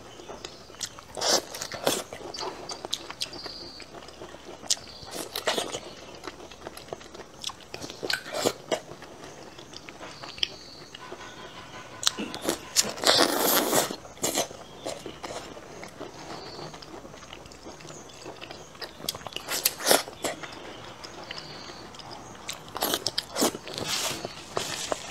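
Close-miked eating: a person biting into and chewing food, with moist smacking clicks and occasional louder bites, the loudest about thirteen seconds in.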